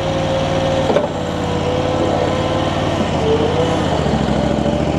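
Infront YF380 mini skid steer's engine running steadily with a steady high whine over it; the engine note shifts about four seconds in.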